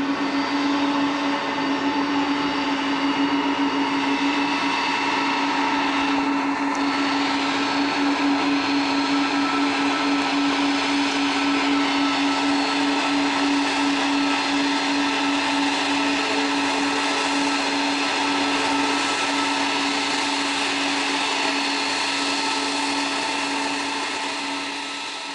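Boeing 777-200's twin Pratt & Whitney PW4000-series turbofans running at taxi power, a steady jet whine with a strong low hum, fading near the end.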